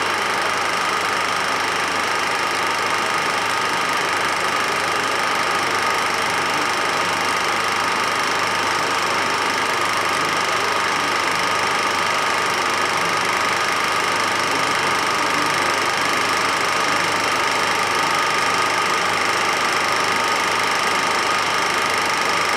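Home-movie film projector running: a steady mechanical running noise with a constant high whine, unchanging throughout.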